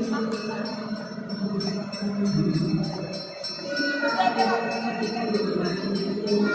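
Music with a melody over a steady jingling bell beat.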